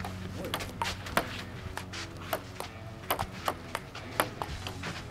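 Table tennis ball clicking off paddles and a mini table in a rally, about three sharp hits a second.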